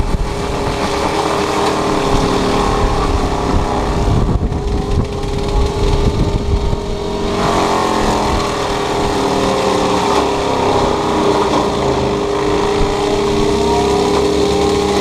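Takeuchi TB290 excavator's diesel engine running under load with its FAE mulching head spinning. A steady tone holds over the rumble while other tones slide up and down as the load changes.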